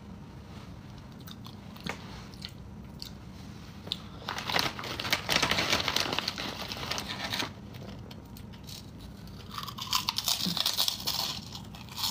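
Close crunching and crinkling of a snack and its packaging, with faint scattered clicks at first. Then come two spells of dense crackling, one from about four to seven and a half seconds in and another near the end.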